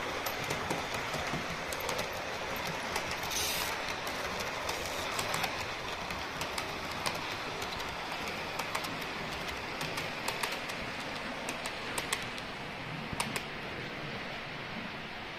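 Model railway train running past on the track: a steady rolling rumble with frequent sharp clicks of the wheels crossing rail joints.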